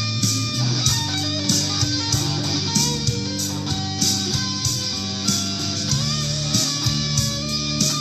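Electric guitar, a Gibson Les Paul Supreme, playing over a full band backing track with bass and a steady drum beat.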